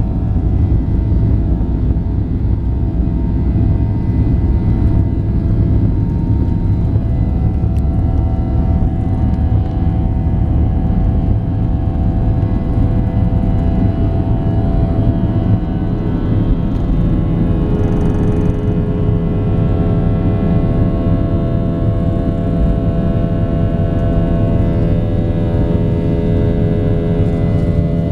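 Boeing 737-800's CFM56-7B turbofan engines at takeoff thrust, heard from inside the cabin. There is a steady loud roar over a deep rumble, with several whining fan tones that grow clearer and steadier about halfway through, as the jet rolls down the runway and climbs away.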